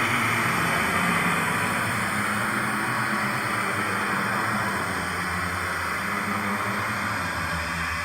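Eerie horror ambience sound effect: a steady hissing, rumbling drone that slowly fades.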